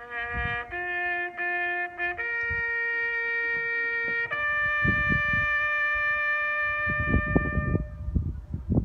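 A bugle call on a single brass instrument: a few short notes, then a long held note, then a higher final note held for about four seconds before it fades away.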